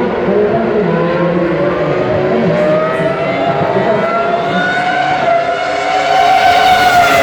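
Formula One car engine at high revs, its pitch climbing slowly and steadily as the car accelerates, then bending down near the end as the car goes by.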